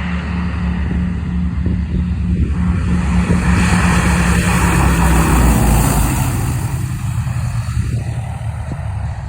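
Piston-engined warbird aircraft passing by, its engine drone swelling to a peak about five or six seconds in and then fading.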